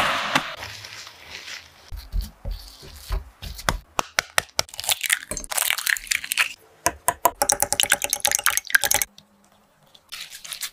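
Kitchen sounds of making choux pastry batter: a hiss as flour is poured into a pan of hot milk and butter, then a run of quick, irregular clicks and knocks of utensils working the paste and eggs, with a short pause near the end.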